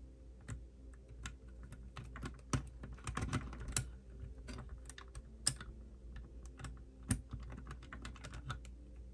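Irregular small clicks and taps of hard plastic 3D crystal puzzle pieces being handled and pressed together, plastic knocking on plastic, with a few sharper clicks spread through.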